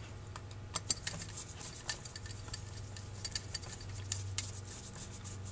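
Screwdriver driving the two long screws into a Holley 2280 carburetor's body, giving faint, irregular small metallic clicks and ticks over a low steady hum.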